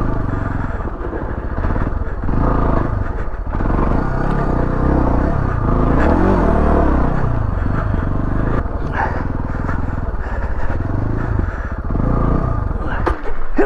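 Beta ALP 4.0 dual-sport's single-cylinder four-stroke engine (Suzuki DR350-based) running at low speed under the rider. The revs rise and fall again around the middle.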